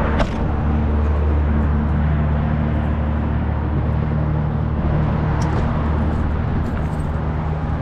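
Vehicle engine idling steadily with a hiss of road or wind noise over it; a sharp knock sounds at the very start.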